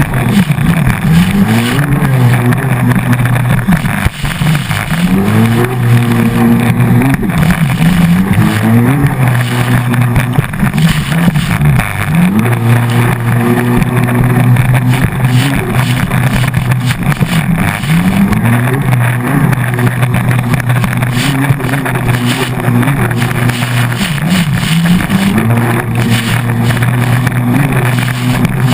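Hydrospace stand-up jet ski engine running hard. Its pitch drops and climbs again every few seconds as the throttle is eased and reopened, over a loud rush of wind and water.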